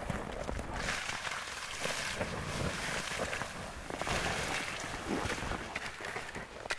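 Water poured from a bucket onto the hot coals and ashes of a campfire, hissing and sizzling as it turns to steam; the hiss sets in about a second in, eases briefly just after the middle and picks up again.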